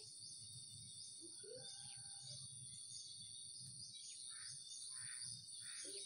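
Faint, steady chorus of insects chirping in high tones, pulsing about twice a second, with a few faint bird chirps mixed in and a low rustle of handling.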